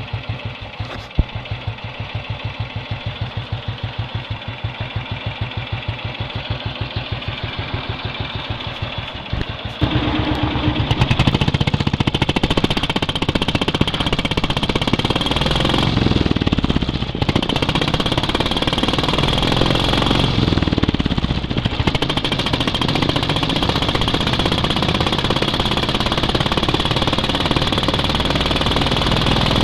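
1957 BSA M33 500cc single-cylinder motorcycle engine idling with an even, regular beat, then about ten seconds in the throttle opens and it runs much louder under way, easing off briefly twice.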